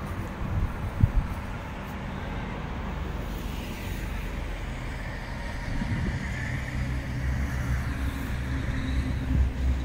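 Road traffic going by: tyre noise and a low engine hum that grows louder in the second half. A short knock about a second in.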